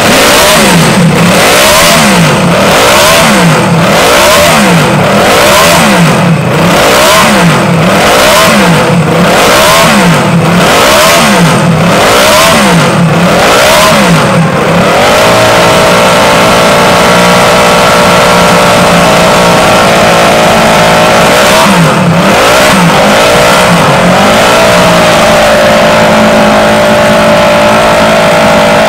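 Moto Guzzi Ottocilindri 500 cc V8 racing engine being revved hard, blipped up and down about once a second. About halfway through it is held at steady raised revs, blipped twice more, then held steady again.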